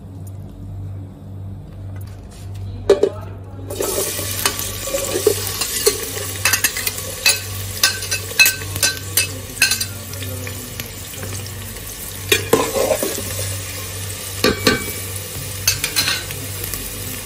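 Chopped onion sizzling in hot oil in an aluminium pot, with sharp clicks and scrapes as a knife pushes the onion off a glass plate. The sizzle starts about four seconds in, as the onion hits the oil.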